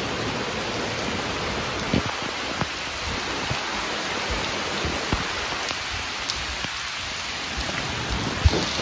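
Heavy tropical-storm rain pouring down in a steady hiss, with scattered louder drops smacking close by.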